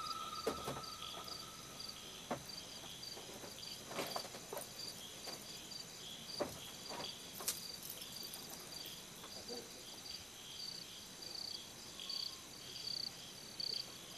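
Crickets chirping in a steady, pulsing night chorus, with a few scattered soft knocks and rustles.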